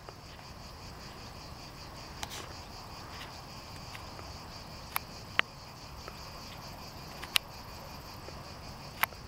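Insects chirring steadily in a high, pulsing band, with a few sharp clicks over it.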